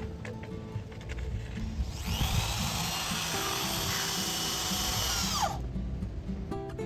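Electric power drill running for about three and a half seconds with a high whine, then winding down as it is released. Background music plays throughout.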